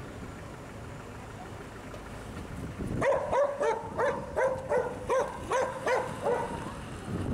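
A dog barking in a quick series, about three barks a second, starting about three seconds in and stopping shortly before the end.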